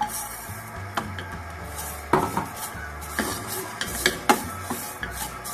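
Wooden spatula stirring shredded coconut in a nonstick frying pan, scraping and knocking against the pan several times.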